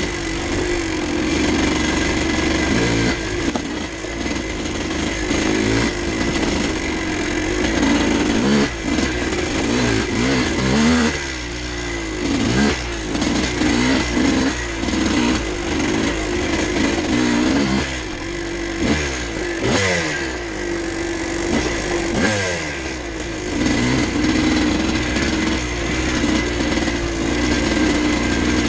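1986 Kawasaki KDX200's two-stroke single-cylinder engine pulling the bike along, its pitch rising and falling again and again with the throttle through the middle stretch, then steadier toward the end.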